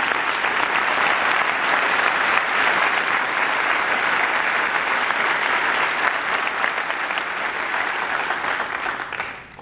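A large audience in an auditorium applauding steadily, the clapping dying away near the end.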